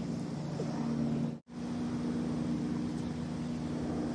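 A steady low mechanical hum with several held tones, over a faint outdoor hiss. It drops out for an instant about a second and a half in and resumes unchanged.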